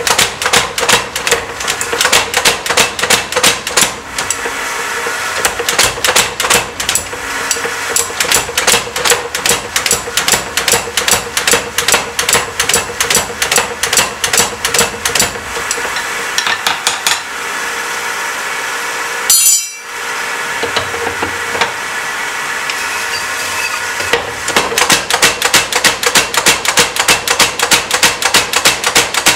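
Power hammer striking a glowing steel bar between its dies in fast, repeated blows, with a steady hum underneath. The blows stop for several seconds past the middle, with one short sharp noise in the gap, then start again for the last few seconds.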